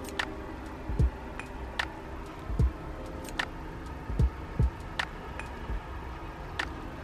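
Background music with a slow beat: deep kick-drum thumps alternating with sharp clicking snare hits, roughly one every 0.8 s, over soft sustained tones.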